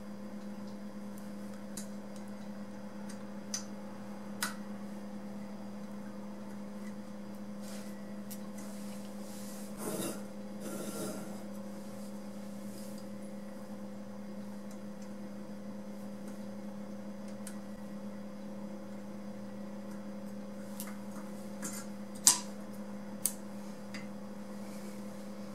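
A few light metallic clicks and a brief scraping rub as small screws and the tip parts of an epee are worked loose with a screwdriver over a metal magnetic parts bowl. Two clicks near the end are the loudest, and a steady low hum runs underneath.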